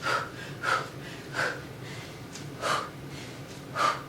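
A woman's sharp, forceful exhales through the mouth and nose, one puff per strike, as she throws punches and knee strikes in a kickboxing combination; five short breaths come at an uneven pace.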